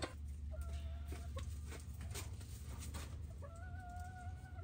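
Chicken hens calling: two drawn-out calls held at an even pitch, a short one about half a second in and a longer one near the end, with a few faint clucks and ticks between.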